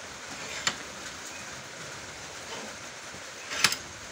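Metal Power 5-inch steel bench vise being unscrewed by its sliding handle to open the jaws and release a clamped steel bar: a low steady hiss with a light click about two-thirds of a second in and a couple of metal clicks near the end.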